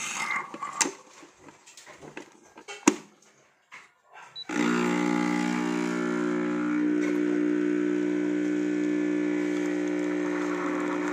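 A few sharp clicks and knocks as the capsule machine is loaded and closed. About four and a half seconds in, the B Coffee Co. Freshman capsule espresso machine's pump starts with a sudden loud, steady hum and keeps running while it brews espresso into the cup.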